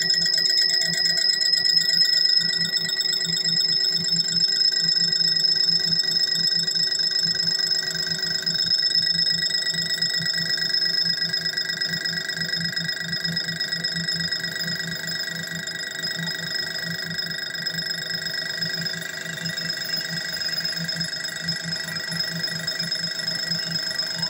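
Metal lathe running and turning a metal disc between centres, with a steady high-pitched ringing whine from the cut over a pulsing low hum, growing slightly quieter in the second half.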